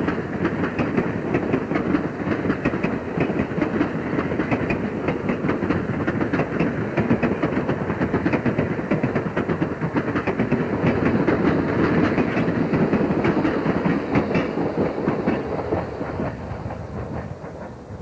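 Passenger train coaches rolling past close by, steel wheels clicking rapidly over the rail joints over a steady rumble. The sound fades away over the last couple of seconds as the end of the train goes by.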